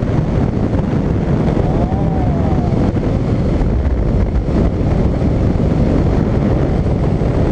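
Motorcycle riding at road speed, heard from a helmet-mounted microphone: a steady low roar of wind buffeting the mic over the drone of the engine and tyres.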